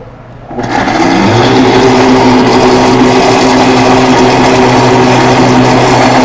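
Blender switched on about half a second in. Its motor spins up, rising in pitch over about a second, then runs steadily and loudly, whipping a blue cheese sauce of cream, gorgonzola and mayonnaise as it thickens with lemon juice.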